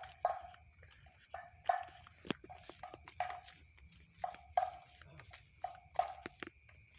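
Steady high chirring of night insects, with irregular short clacks about twice a second.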